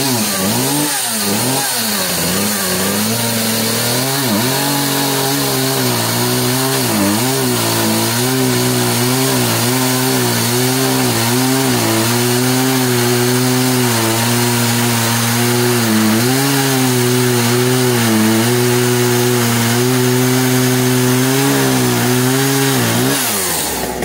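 Handheld chainsaw cutting into a hard maple slab, its pitch dipping over and over as the chain bogs in the wood, then stopping shortly before the end. The chain is grinding through the wood rather than cutting cleanly, the sign of a dull chain.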